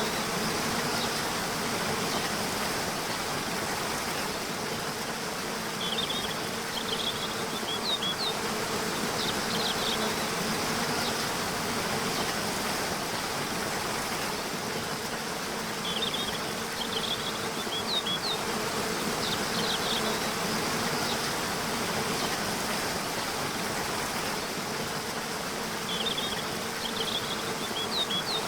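Steady rushing of a waterfall, with clusters of high bird chirps recurring about every ten seconds.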